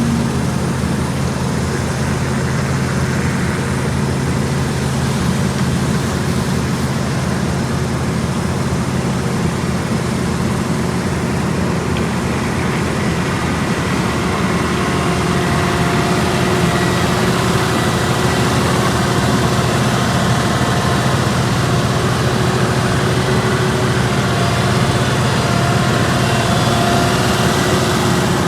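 Diesel engines of asphalt paving machinery running steadily, a low engine hum with faint steady higher tones above it in the second half.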